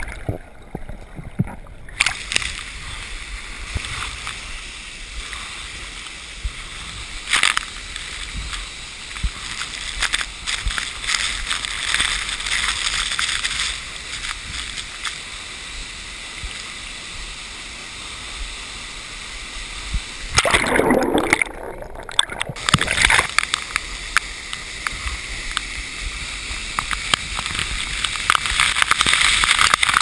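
Water heard from an action camera in a waterfall's plunge pool: muffled underwater for the first two seconds, then sloshing and splashing at the surface with the rush of the falls. A loud splash comes about two-thirds of the way through, and the rushing water grows louder near the end.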